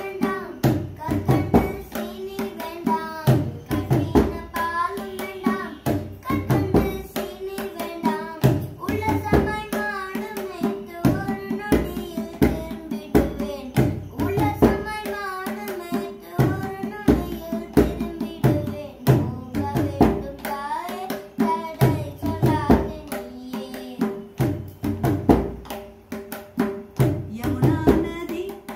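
Carnatic singing by a boy and a woman in turn, accompanied by a mridangam played with quick hand strokes, over a steady drone.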